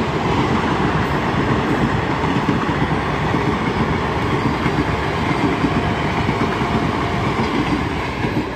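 Indian Railways passenger train's coaches rolling past at close range, a steady loud rumble and clatter of steel wheels on the rails, easing off slightly near the end as the last coach goes by.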